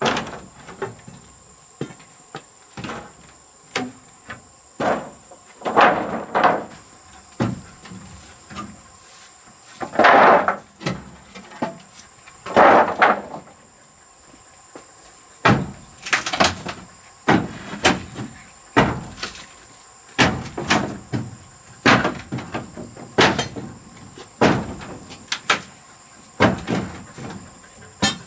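Irregular knocks, thuds and scrapes of hands-on repair work, one every second or so, with a few louder scraping strokes. A steady high-pitched insect drone runs underneath.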